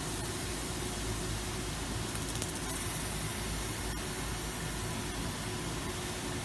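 FO-3015NT laser cutting machine running: a steady hiss over a low hum.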